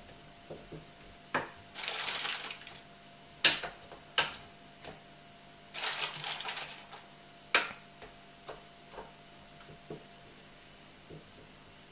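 Clinks, knocks and brief rattling of a spoon and pieces of white chocolate against a metal mixing bowl set over a saucepan as a double boiler, with chocolate being added bit by bit and stirred. There are separate sharp clinks and two short spells of rattling, about two seconds in and again about six seconds in.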